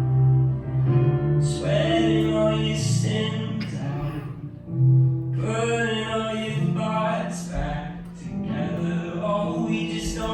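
Song playing over the sound system: sustained low notes under a singing voice with guitar, the phrases rising and breaking every couple of seconds.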